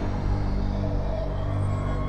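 Soundtrack music with a steady, sustained deep drone.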